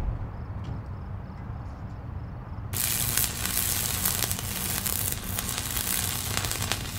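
Logo-reveal sound effect: a low rumble, then about three seconds in a dense crackling, sizzling hiss of sparks starts and runs on.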